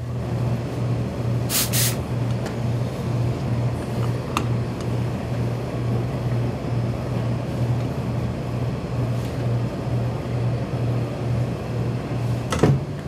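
Pressing equipment running with a steady, evenly pulsing low motor hum, with a brief hiss about one and a half seconds in.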